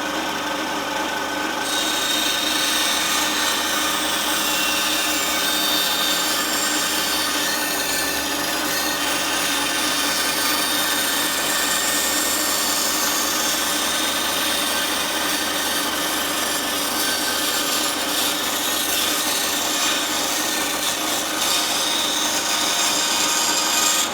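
Aldi Workzone benchtop bandsaw running, its steady motor hum joined about two seconds in by the rasp of the blade cutting through a piece of scrap wood.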